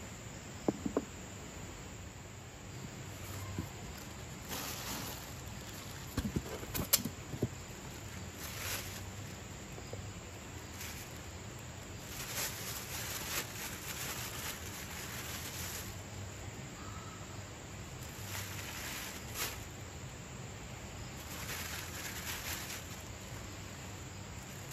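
Thin plastic bag crinkling in repeated bursts as fish are taken out of it by hand. A few sharp knocks come in the first seven seconds, over a steady background hiss.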